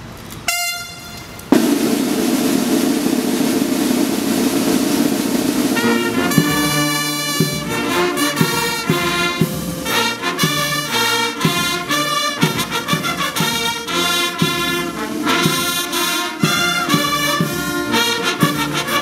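Brass band playing, trumpets and trombones among it: a long held chord, then from about six seconds in a steady rhythmic run of short notes.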